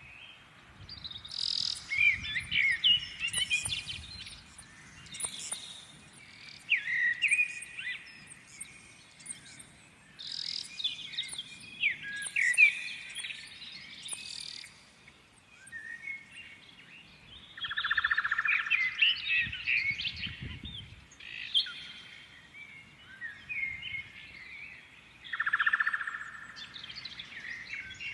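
Songbirds singing and chirping, with overlapping quick chirps and trills coming in phrases a second or two long, separated by short pauses.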